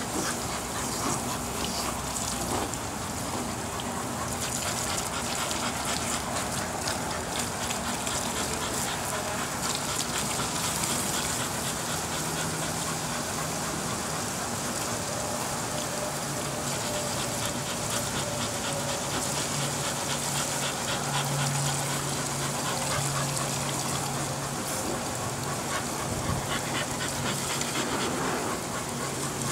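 Water hissing steadily from a garden hose's sprayer gadget on a toy pool slide, splashing into the pool. A dog is heard as well, and a low steady hum comes in about two-thirds of the way through.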